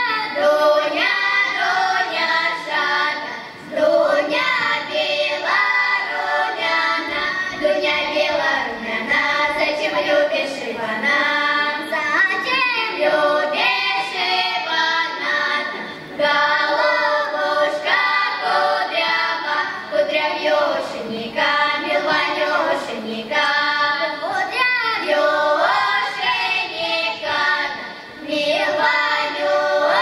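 A girls' ensemble singing a Cossack folk song together, in sung phrases with brief pauses about every twelve seconds.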